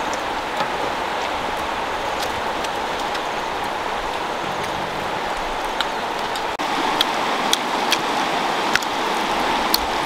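Steady rush of a flowing river, with scattered light clicks on top.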